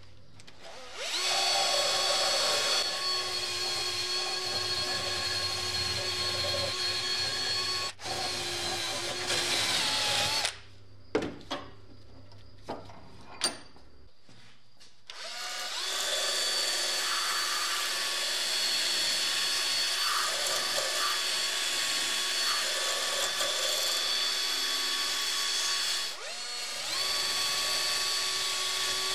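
Power tool driving a rotary wire wheel, scrubbing rust off small steel parts clamped in a vise. It spins up about a second in and runs with a steady whine, stops around the tenth second, then spins up and runs again from about the fifteenth second, with a brief dip near the end. In the pause there are a few sharp metal knocks.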